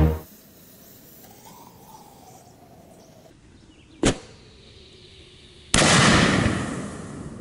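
Consumer firework mortar shell loaded upside down in its tube, going off. A single sharp crack about four seconds in as the lift charge fires, then about a second and a half later a much louder blast as the shell bursts at the tube, fading over a couple of seconds.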